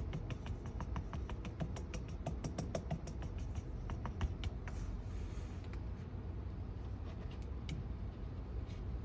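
Blind-box packaging being handled and opened: quick small crinkling clicks for the first four seconds or so, a short rustle about five seconds in, then scattered clicks.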